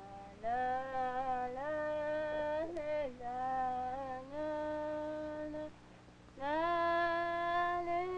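A lone high voice sings a slow wordless melody of long held notes that glide between pitches, with a short pause about six seconds in. A faint steady low hum lies underneath.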